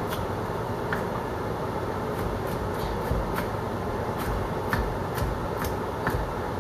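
Steak strips sizzling in a frying pan, a steady hiss. On top of it a knife knocks on a cutting board about a dozen times at an uneven pace as green peppers are sliced.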